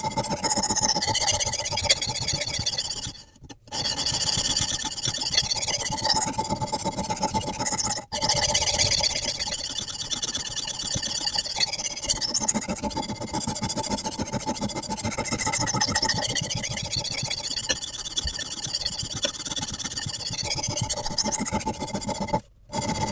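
Abrasive sharpening stone on a guided rod, scraped back and forth along a carbon-steel knife edge with a gritty, squealing grind. Brief cuts to silence about three seconds in and near the end break the scraping.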